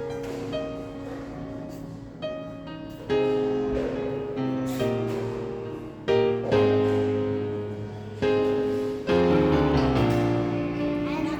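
Background music: piano playing slow sustained chords.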